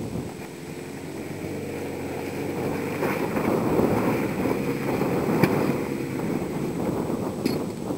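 Small vehicle engine running steadily over rough ground, with wind buffeting the microphone and a few sharp knocks, the loudest about five and a half seconds in.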